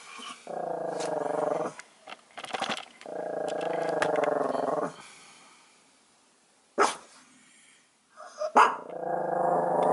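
Small dog growling in three drawn-out growls, each a second or two long, with two short, sharp sounds in the quieter stretch between the second and third.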